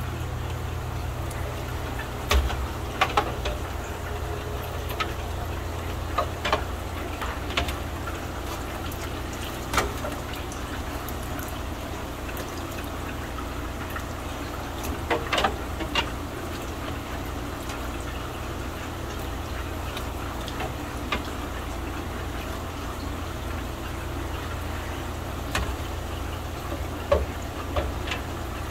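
Hand net working through aquarium water, with scattered splashes and knocks of the net and bowl as fish are caught, over a steady low machine hum from the fish-room equipment.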